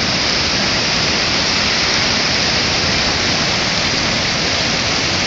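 Steady rushing of floodwater pouring across a washed-out road.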